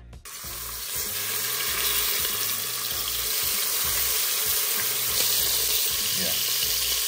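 Chunks of beef chuck sizzling steadily as they sear in hot oil in an electric pressure cooker on sauté mode. The sizzle starts abruptly just after the beginning.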